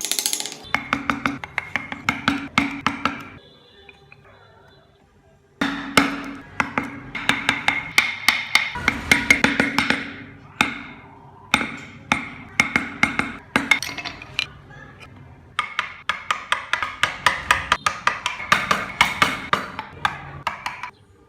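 Rapid knocks of hand carving tools striking wood, several a second, in bursts with a pause of about two seconds near the start and shorter breaks later.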